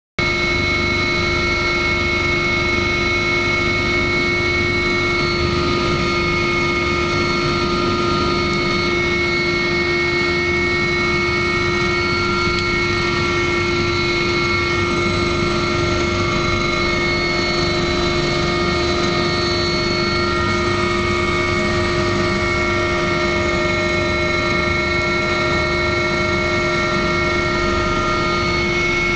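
Helicopter running steadily: a constant engine whine with several held tones over an even rumble, unchanging throughout.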